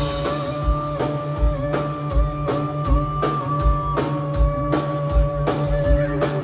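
Live rock band playing an instrumental passage: electric guitar holding long, slightly bending notes over a steady drum beat and bass.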